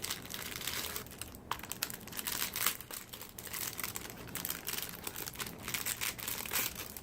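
Packaging crinkling and rustling as it is opened by hand, a run of irregular crackles throughout.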